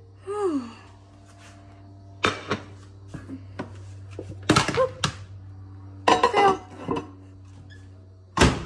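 Handling knocks and thunks at an over-the-range microwave as its door is opened and things are taken out, about five separate knocks with the loudest near the end, over a steady low hum.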